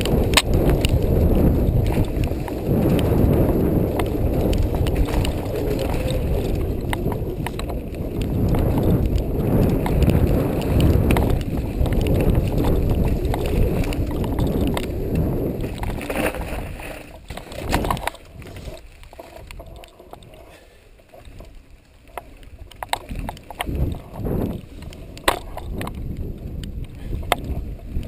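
Wind buffeting the microphone of a camera riding on a mountain bike, with the clicks and rattles of the bike and its boom camera mount jolting over a dirt trail. The wind dies down for several seconds past the middle, leaving scattered sharp clicks, then rises again near the end.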